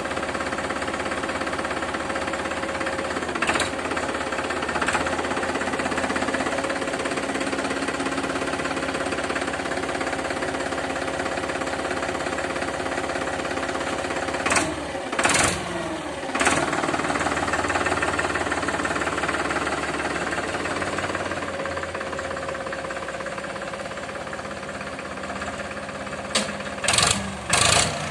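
Powertrac Euro 50 tractor's three-cylinder diesel engine running steadily at idle, with short loud bursts of noise about halfway through and several more near the end as the tractor moves off.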